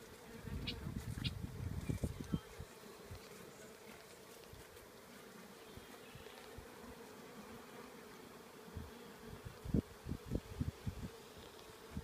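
A honeybee colony in an open hive humming steadily as the bees crowd between the frames. Low rumbling bumps on the microphone come near the start and again near the end.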